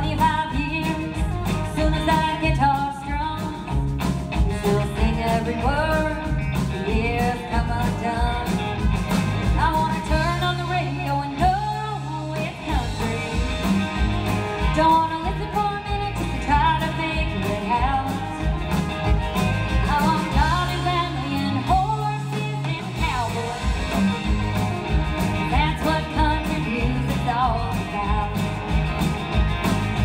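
A live country band playing: a woman sings the lead over strummed acoustic guitar, drums and fiddle, with a steady beat.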